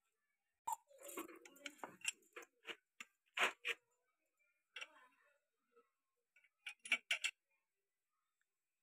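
Light metallic clicks and taps as a steel ruler and hand work against a tractor clutch pressure plate's release fingers while the finger height is set. The taps come in a cluster from about one to four seconds in, and again around seven seconds.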